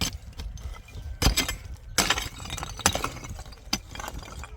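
An irregular series of sharp knocks and clinks from hard objects being struck or handled, several close together, with the loudest about a second and a half in, at two seconds and near three seconds.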